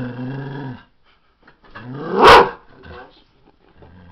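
A dog growling at a bee, with one sharp, loud bark about two seconds in, then growling again near the end.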